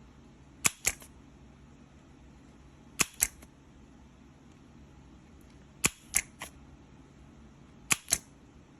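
Spring-loaded desoldering pump (solder sucker) snapping as it is fired to pull molten solder off a capacitor's leads on a circuit board: four pairs of sharp clicks, each pair about a fifth of a second apart, every few seconds.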